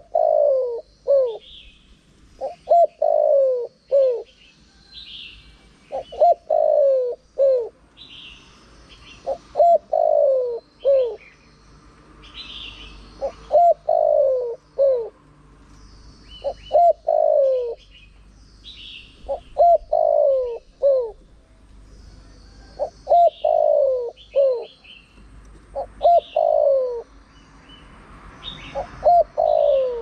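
Spotted dove cooing in repeated phrases, about one every three seconds. Each phrase is a short note, a longer falling coo and a short closing note. Small birds chirp faintly and higher in the gaps.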